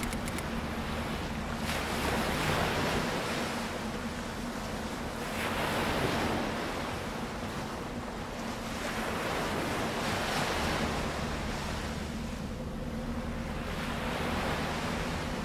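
Sea waves surging and washing on a rocky shore, swelling and fading about every four seconds, with wind.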